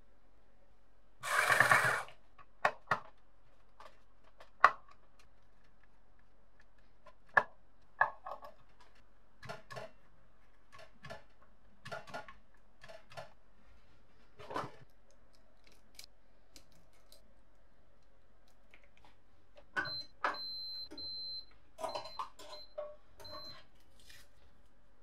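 Scattered small clicks and taps of handling, with a short scraping rush just over a second in. Around twenty seconds in, a faint thin high tone switches on and off several times among a cluster of clicks.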